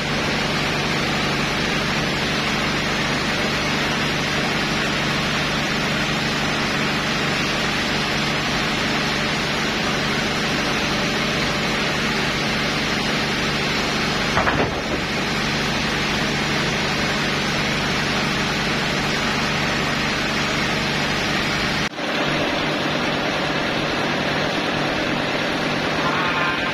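Log band sawmill running: a steady, dense rushing noise with a low hum underneath. There is a brief knock about halfway through.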